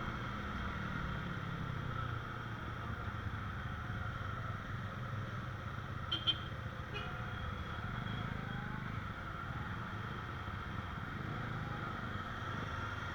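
Motorcycle running steadily on the move, heard from the bike with road and wind noise, with a couple of brief clicks about six seconds in.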